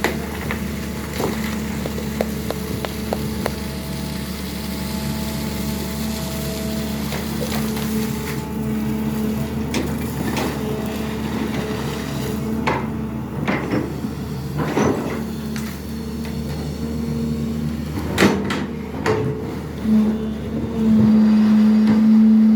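SANY hydraulic excavator's diesel engine running steadily, with a handful of sharp knocks and clanks in the middle. The engine tone grows louder near the end.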